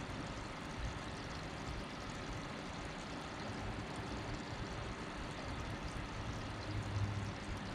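Steady outdoor background noise with a low rumble, and a brief louder low hum near the end.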